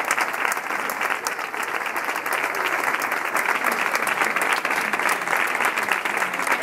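A small crowd applauding steadily.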